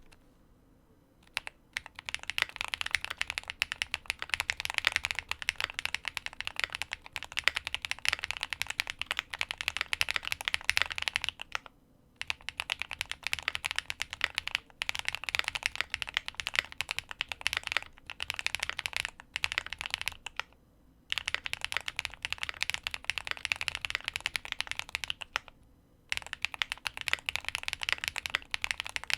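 Typing on a QK75 mechanical keyboard with Swagkey x Gateron Pure Berry switches, an FR4 plate, full foam and GMK Dandy keycaps: fast runs of keystroke clacks. The typing starts after about a second and a half and pauses briefly about 12, 20 and 26 seconds in.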